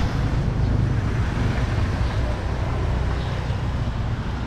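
Steady low rumble of outdoor background noise, with no single event standing out.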